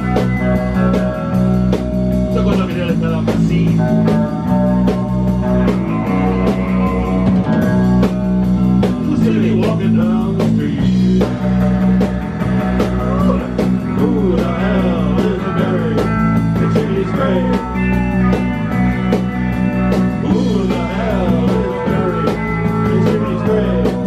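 Live rock band playing a song at full volume: distorted electric guitars, bass guitar and drum kit, with no break in the music.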